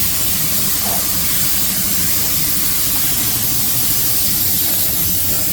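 A steady, loud hiss of rushing air or spray that starts abruptly and holds even throughout.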